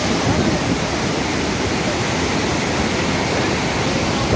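Floodwater pouring through the open gates of a river barrage: a steady, even rush of water.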